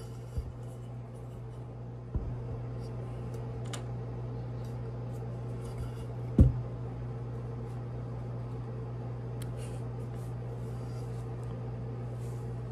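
Hands handling a metal tumbler and pressing stickers onto it: soft rustling and rubbing of the stickers, with a few knocks as the tumbler is moved, the loudest a little past halfway. A steady low hum runs underneath.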